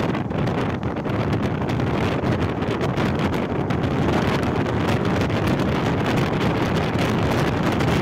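Wind rushing in through the open window of a moving car and buffeting the microphone, over the car's road noise: a loud, steady rush that starts suddenly just before and holds throughout.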